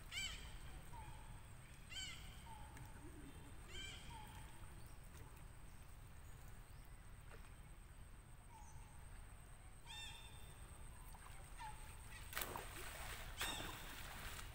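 Repeated short animal calls over faint outdoor background. A call with several stacked pitches comes about every two seconds, a short lower note repeats at a similar pace, and two sharp noises come near the end.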